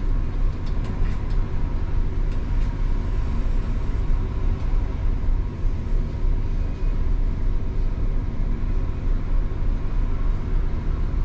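Intercity coach's diesel engine idling steadily, heard from the driver's cab, with a few light clicks in the first three seconds.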